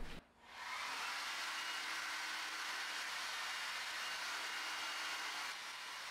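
Hand-held hair dryer blowing steadily, the airflow and fan setting in about half a second in. It drops to a quieter level shortly before the end.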